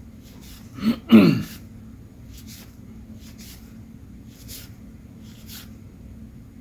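A man clears his throat once, about a second in, with a short falling sound. Afterwards come a few soft ticks and rustles of trading cards being handled, over a steady low hum.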